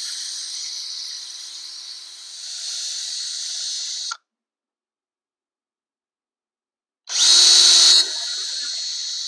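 Cordless drill with a small bit drilling feeder-wire holes down through cork roadbed beside the rail. It runs steadily, stops abruptly about four seconds in, and after about three seconds of silence starts again, loud for about a second before settling as it drills the next hole.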